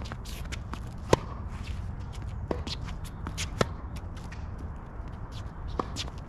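Tennis rally: sharp pops of racket strings hitting the ball and the ball bouncing, four hits about a second or two apart, with quick shoe scuffs of footwork on the court between them.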